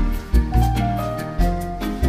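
Instrumental background music with a steady beat and a melody of held notes.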